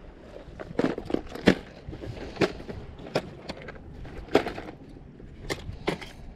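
A series of sharp, irregular knocks and clicks, about nine in six seconds, of hard objects striking.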